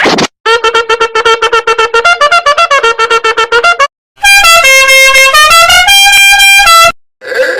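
Meme sound effects played back to back. First comes a rapid run of short pitched notes, about eight a second, for three and a half seconds. Then a loud horn-like tone steps through a short melody for nearly three seconds.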